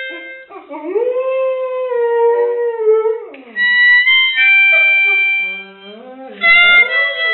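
Golden retriever howling along to music: long, wavering howls that rise and fall in pitch, alternating with steady held chords from an instrument. The dog howls from about half a second in to about three seconds, the chords sound alone for a couple of seconds, then chords and howl overlap near the end.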